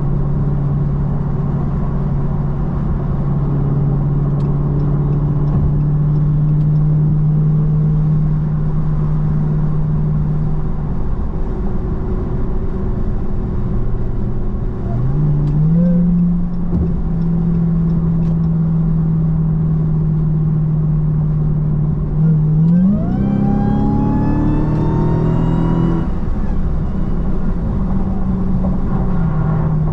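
Dodge Hellcat Redeye's supercharged Hemi V8 running at steady cruising revs while driving. Its note dips briefly near the middle. About three-quarters of the way through it accelerates, with the revs climbing for about three seconds before dropping back to a steady cruise.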